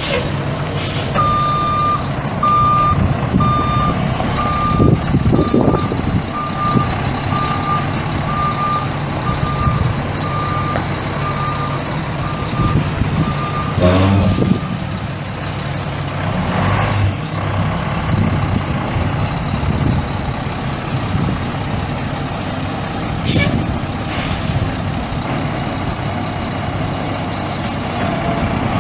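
Mack EM7 12-litre inline-six turbo diesel running in a heavy truck while a backup alarm beeps steadily, a little more than once a second, stopping about halfway through. Just as the beeping stops comes a short burst of air hiss, like air brakes, and the diesel keeps running afterwards.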